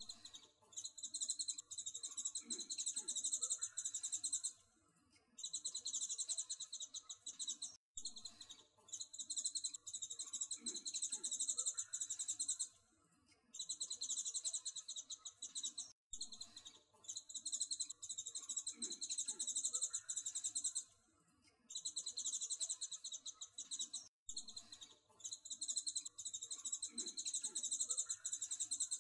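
A high, rapidly pulsing trill in phrases a few seconds long with short breaks, the same eight-second stretch repeating over and over as a loop.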